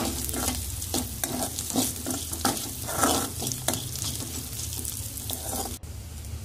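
Slotted metal spoon stirring and scraping onion, garlic, dried chillies and whole spices frying in oil in a metal kadai, with a light sizzle. The scraping strokes come about three a second and stop near the end.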